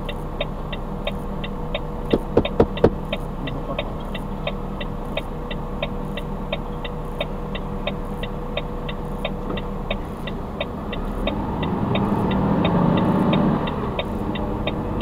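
Truck cab with the diesel engine idling and the turn-signal relay ticking steadily, about two and a half ticks a second. A few sharp knocks come about two seconds in, and near the end the engine revs up as the truck pulls away.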